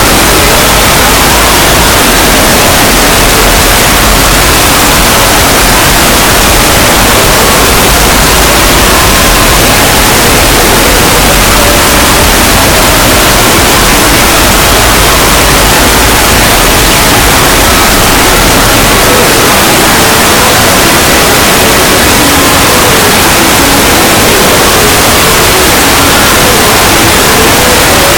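Very loud, harsh noise like static that fills the whole range from low to high and stays steady.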